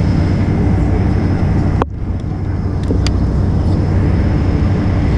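Steady rumble inside the cabin of a Boeing 747-400 taxiing, its engines at low taxi power, with a faint steady whine over it. The sound breaks off sharply and dips for a moment about two seconds in.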